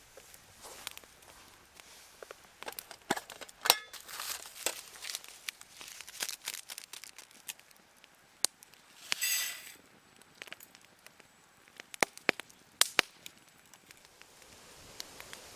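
Wood campfire crackling, with irregular sharp pops and snaps, and a brief hiss about nine seconds in.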